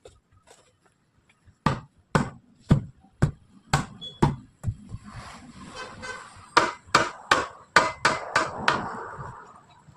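Hammer blows, about two a second, in two runs: six or seven strikes, a short pause, then seven quicker strikes.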